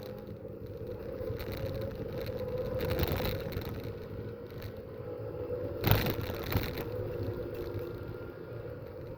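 Racing cars running on a motor-racing circuit, recorded with rough, poor-quality sound and a steady engine hum. There is a sharp, loud thump about six seconds in.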